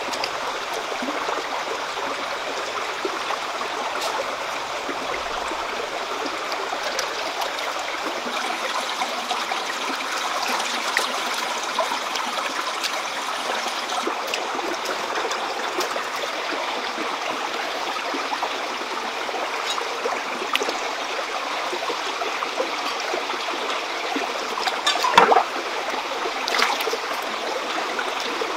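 Shallow stream running steadily over rocks, with a few faint clicks and one sharp knock near the end.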